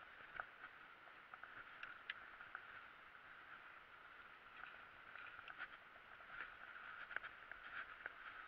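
Faint, muffled rattling and ticking of a mountain bike rolling over a bumpy dirt singletrack, with many small irregular knocks over a steady hiss.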